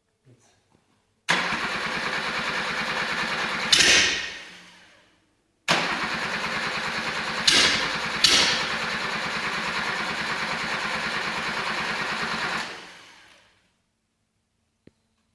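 Rebuilt Suzuki F10A four-cylinder engine on a test stand, started twice: each time it comes in suddenly, runs with an even pulse for a few seconds, then dies away over about a second. A few short louder bursts break in, one just before the first run stops and two in the middle of the second.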